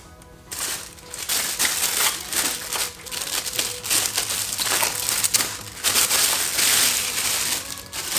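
Clear plastic bag crinkling and crumpling as a desktop satellite speaker is unwrapped from it by hand. The crinkling starts about half a second in and runs in dense, loud bursts.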